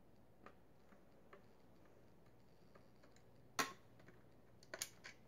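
Faint, irregular clicks and taps of handling while a diecast model car is unscrewed from its display base. A sharper click comes about three and a half seconds in, and a few more near the end.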